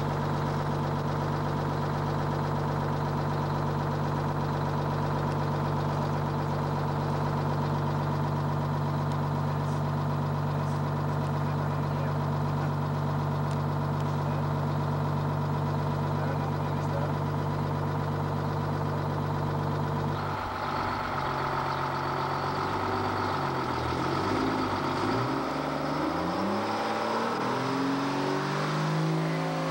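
An old Diamond T truck's engine idling steadily, heard from inside the cab. About two-thirds of the way through the sound changes abruptly, the engine's pitch wavers up and down, and near the end it rises as the engine revs up.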